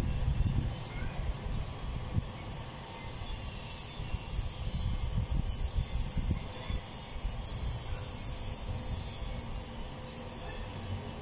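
Outdoor ambience dominated by an uneven, gusty low rumble, typical of wind buffeting a phone microphone, with a faint steady high hiss and a few faint short chirps.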